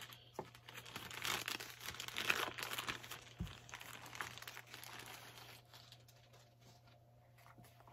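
Plastic bag of a comic-book mystery pack being crinkled and torn open, a dense crackling that is busiest in the first few seconds and then tapers off into faint rustles.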